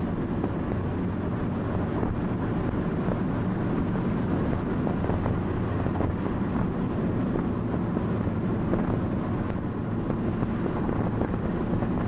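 Steady road noise inside a moving car's cabin: the engine's low hum and tyre rumble, with no change in pace.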